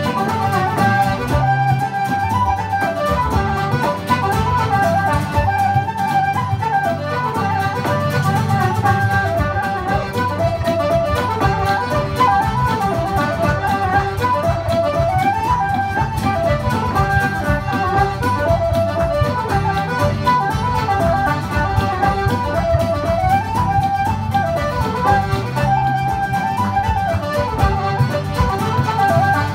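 Irish traditional music played live: flute and button accordion playing the melody together over acoustic guitar chords, with a busy line of quickly changing notes.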